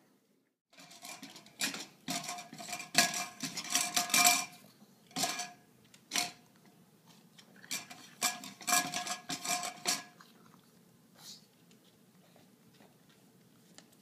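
A pug eating from a bowl set in a wire stand, the bowl clattering and ringing against the stand in bursts of rapid clinks that stop about ten seconds in, with a few faint ticks after.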